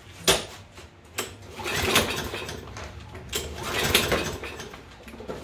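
Recoil starter of a Toro push mower's Kohler engine pulled twice, the engine turning over with a rattling whir but not firing: a no-start.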